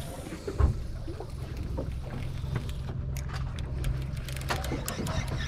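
A boat's outboard engine idling with a steady low hum. A thump comes about half a second in, and scattered light clicks and taps follow.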